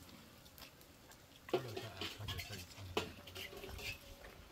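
Steel pot and small metal bowls clinking as people scoop food from them by hand, with two sharper knocks, about a second and a half in and again about three seconds in.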